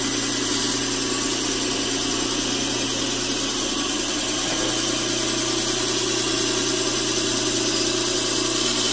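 Surface grinder with an abrasive-belt attachment running steadily while the fine belt grinds across a hardened steel knife blade, throwing sparks. It is a very light truing pass after straightening, taking off about half a thousandth of an inch to flatten a small dip.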